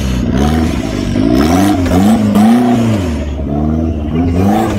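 Off-road 4x4's engine revving up and down over and over, its pitch rising and falling every half second or so.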